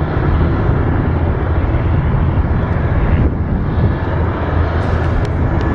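Small twin-turboprop aircraft on its landing roll: a steady, loud low rumble with a faint steady high whine above it.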